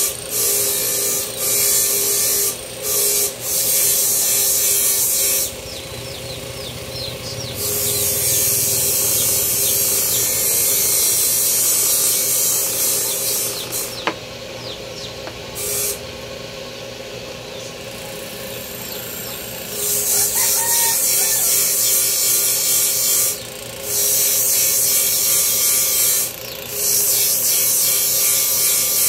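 Wood being sanded or rasped in long bursts of hissing scraping, a few seconds each with short pauses between, and one sharp click near the middle.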